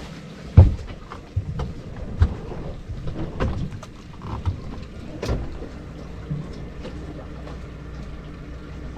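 Irregular knocks, cracks and scrapes, the loudest about half a second in: a small boat pushing through mangrove branches. A steady low hum runs underneath and is left on its own through the second half.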